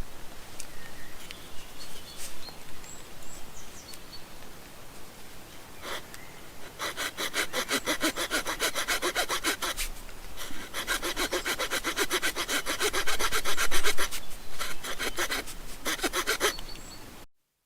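The small folding saw blade of a Swiss Army knife cutting notches into a wooden stick. Three runs of quick back-and-forth strokes with short pauses between them, after a few seconds of lighter scraping. The sound cuts off suddenly near the end.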